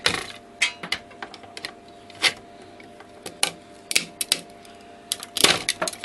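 Pliers cracking plastic connector housings and brass pins off a washing machine motor-drive circuit board: irregular sharp clicks and snaps, with a quick burst of them near the end.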